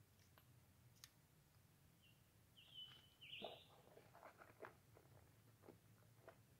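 Near silence, with a short high bird chirp about three seconds in and a few faint clicks and taps.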